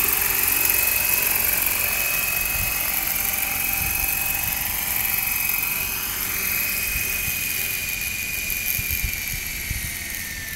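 Small unmanned helicopter hovering low and setting down, its engine and rotor giving a steady high whine that, about two-thirds of the way in, begins to fall in pitch and fade as it settles on the ground.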